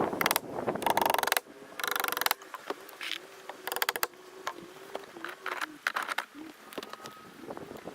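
A hand tool clicking rapidly in three short bursts, followed by scattered light clicks and knocks, with a faint wavering hum beneath.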